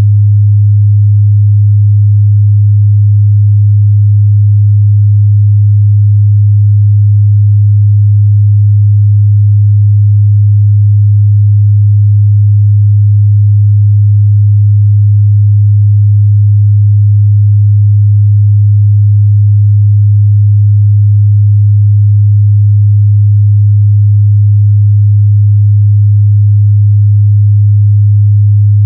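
A steady, loud 103 Hz sine-wave test tone, a single low hum held at constant pitch and level without a break.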